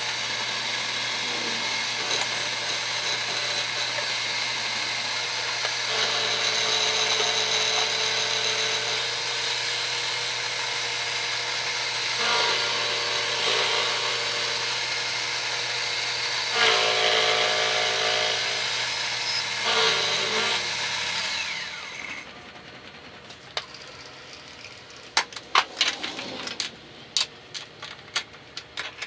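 Excello vertical milling machine running, its end mill cutting metal in a vise with a steady hum and a harsh cutting noise that swells in stretches. The cut stops about three quarters of the way through, followed by scattered metal clinks as the tool at the spindle is handled.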